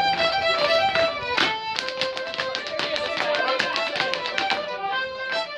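Fiddle playing a rapper sword-dance tune, with rapid tapping from the dancers that is densest through the middle.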